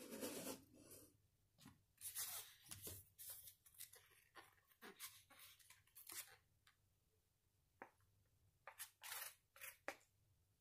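Quiet eating sounds: chopsticks stirring and lifting Chicken Ramen soupless abura-soba noodles in the cup, in short scraping, rustling bursts, with soft mouth sounds as they are tasted.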